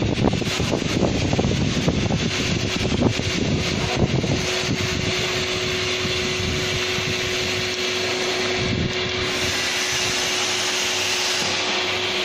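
Hydraulic peanut oil press running under pressure: a steady motor-and-pump whir, rough and uneven low down for the first four seconds, then smoothing out with a steady hum tone.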